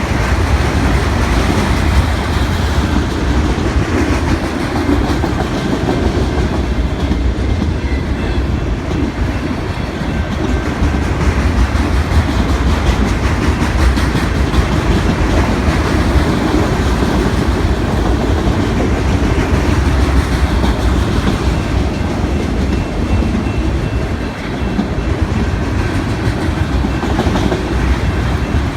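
BNSF manifest freight train rolling past: a steady, loud rumble of steel wheels on rail that does not let up.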